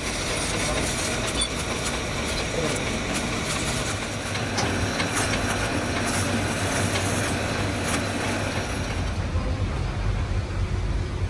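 Large manual lathe turning a heavy steel eccentric shaft, with the cutting tool working the steel: a steady, dense grinding rumble with scattered sharp clicks. About nine seconds in the higher cutting noise fades, leaving a lower machine hum.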